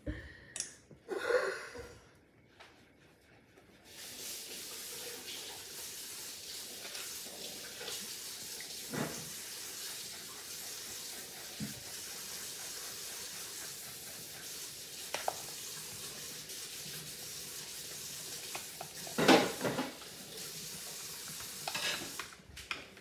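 A kitchen tap runs in a steady rush of water, starting abruptly about four seconds in and stopping just before the end. A few light knocks of utensils and dishes sound over it, and a louder clatter comes about three quarters of the way through.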